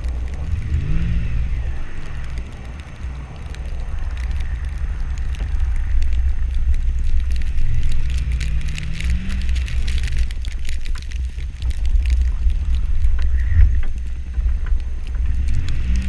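Lifted Chevrolet Avalanche's V8 engine, through a Dynomax Bullet muffler, pulling through deep snow, its pitch rising a few times as it is revved. Heavy wind rumble on the camera microphone and crackle of snow thrown by the tyres run along with it.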